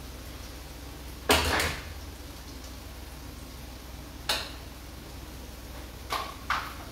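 Cooking utensil clattering and knocking against a frying pan of onions and garlic on a gas stove. There is a loud clatter about a second in, a single knock around four seconds, and two light taps near the end, over a low steady hum.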